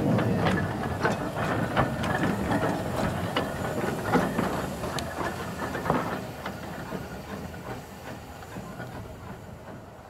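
Small narrow-gauge steam saddle-tank locomotive passing at low speed, with a run of irregular clicks and knocks from its wheels over the rail joints. The sound fades steadily from about six seconds in as it draws away.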